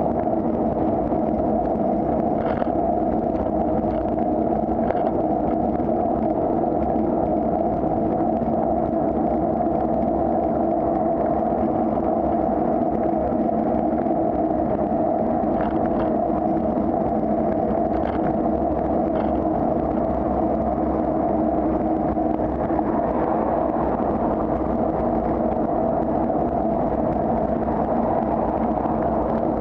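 Steady wind and road noise picked up by a camera on a moving bicycle, with motor traffic running alongside. A few faint clicks are heard, the kind a road surface jolt makes.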